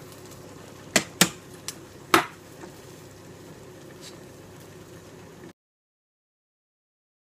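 A metal potato masher knocks sharply against a stainless steel stockpot four times within about a second and a half, over the steady sound of the simmering dye pot. The sound cuts off abruptly to dead silence about five and a half seconds in.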